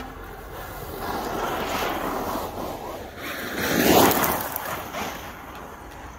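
Traxxas Unlimited Desert Racer RC truck driving fast on a dirt track: its electric motor whine and tyres kicking up dirt grow louder and peak as it passes close by about four seconds in, then fade as it drives away.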